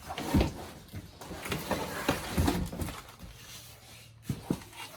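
Cardboard shipping box and packing material rustling and knocking irregularly as a bicycle is lifted out, with a sharp knock about four seconds in.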